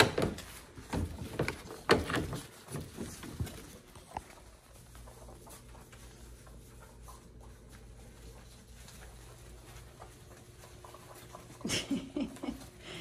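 Goldendoodle puppies scrambling and jostling to nurse from their mother, with irregular rustling, scrabbling and thumps through the first four seconds. After that come quieter shuffling sounds, then another short flurry near the end.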